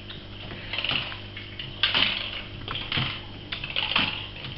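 Ragdoll kitten playing and scrabbling: irregular rustling and scratchy clicks, with a louder burst about once a second.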